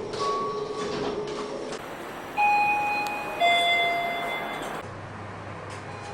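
Kone elevator chime striking two notes about a second apart, the second lower than the first, each ringing on briefly. Before it, a steady machinery hum with a short beep-like tone.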